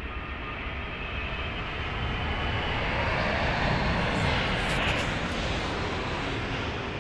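Fighter jet flying over, its noise building steadily to a peak about four to five seconds in and then fading.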